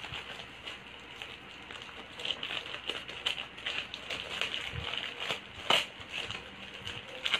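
Plastic packaging crinkling and rustling as a parcel is opened by hand, with irregular crackles and a few sharper snaps, the loudest just before the six-second mark and near the end.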